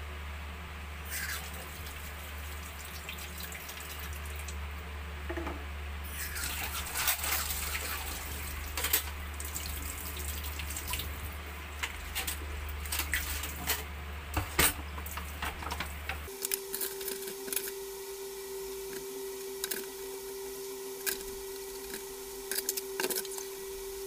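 Dishes being washed by hand in a stainless steel sink: water splashing and dripping, with scattered clinks of a cooking pot and plates. A steady low hum runs underneath and about two-thirds through gives way to a steady higher hum.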